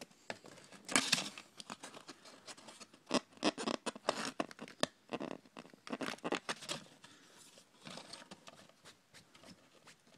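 Paper speaker cone being torn and handled: irregular crackles, rustles and short ripping sounds of stiff paper, with bursts of activity and quieter gaps.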